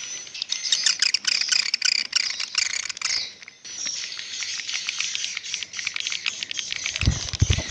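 A flock of swiftlets twittering and chirping continuously inside a swiftlet house, high-pitched calls with rapid clicking mixed in. A few low thumps come near the end.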